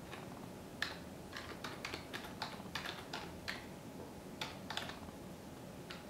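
Keystrokes on a computer keyboard: a run of about a dozen quick key clicks, a pause of about a second, then a few more.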